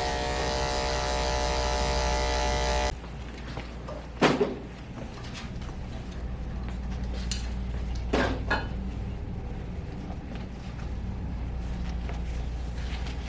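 Electric dog grooming clippers buzzing steadily, then switched off about three seconds in. Two short clinks follow, a few seconds apart.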